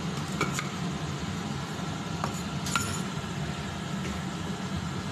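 Silicone spatula stirring and scraping chicken filling in a non-stick frying pan, with a few light clicks of utensil on the pan, over a steady low hum.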